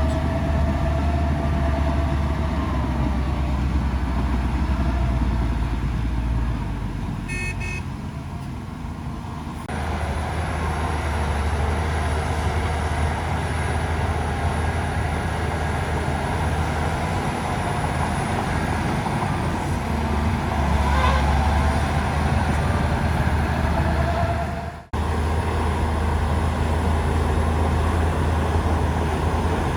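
Heavy diesel machinery engines running steadily under load, with a brief high-pitched beep about seven seconds in. The sound cuts out for an instant about 25 seconds in and picks up again.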